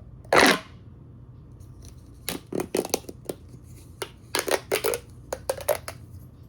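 Plastic pop tube fidget toy being stretched and bent, giving short crackly rasps: one loud rasp about half a second in, then quick clusters of shorter ones.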